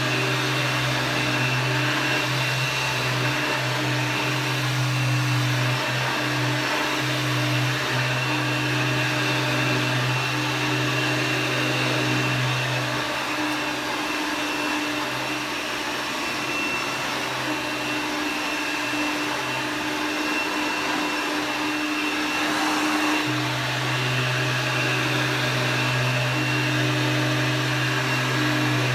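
A 1994 Dirt Devil Plus upright vacuum cleaner running steadily, a motor whine over a low hum. The low hum fades out about halfway through and comes back about ten seconds later.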